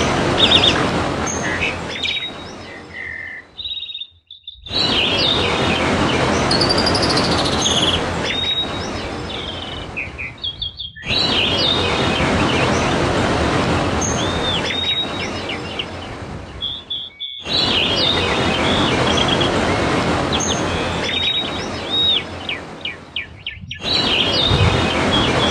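Trickling, splashing water as a dense steady hiss, with white-eyes (pleci) chirping and trilling above it. The water stops briefly about every six seconds, as in a looped recording.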